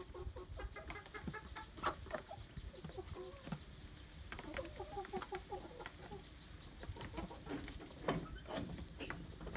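A flock of chickens, hens and roosters, clucking while they feed, with short calls coming in quick runs throughout. A few sharp knocks stand out, the loudest about two seconds in and again about eight seconds in.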